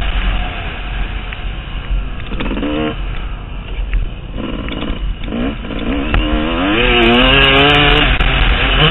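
Motocross bike engine revving up and down while riding, its pitch climbing in short pulls a little over two seconds in and about five seconds in, then a longer climb from about six to eight seconds, over a constant rushing noise.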